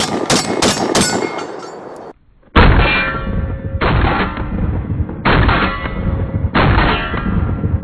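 A Citadel Warthog semi-automatic 12-gauge shotgun fired as fast as possible with 2¾-inch double-aught buckshot: sharp shots about three a second, each ringing on. Then the same string is replayed slowed down, as deep, drawn-out booms with a ringing tail, about one every 1.3 seconds.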